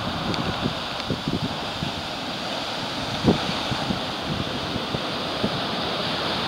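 Ocean surf breaking and washing up a sandy beach in a steady rush, with wind buffeting the microphone in short low thumps, one stronger gust about three seconds in.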